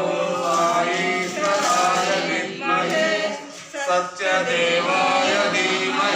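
A group of voices singing a devotional chant.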